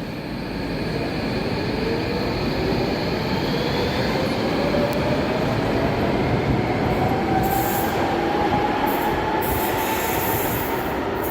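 Docklands Light Railway train pulling away along the platform, its electric traction motors whining slowly upward in pitch as it accelerates, over a steady rumble of wheels on rail. Short hissy bursts come in the second half.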